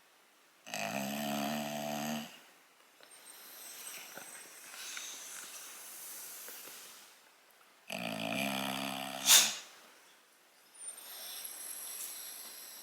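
English bulldog snoring while awake and relaxing: two loud snoring in-breaths about seven seconds apart, each lasting about a second and a half, with softer, breathy out-breaths between. The second in-breath ends in a sharp, loud catch.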